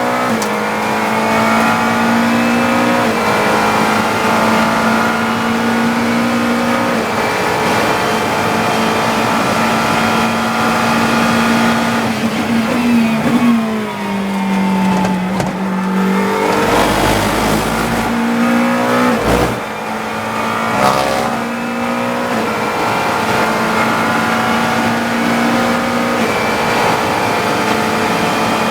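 GT3 race car engine running hard, heard from inside the cockpit, with quick drops and climbs in pitch about halfway through and again a few seconds later as the driver brakes, downshifts and accelerates out of the corners.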